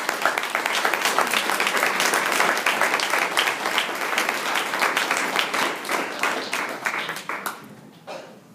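Audience applauding, dense claps that die away near the end.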